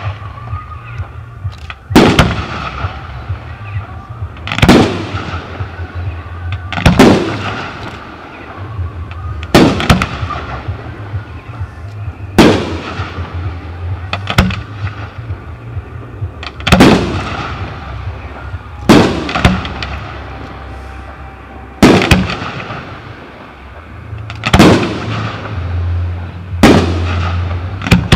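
Aerial firework shells bursting overhead: a loud bang about every two to three seconds, each rolling away in an echo, with smaller pops between them.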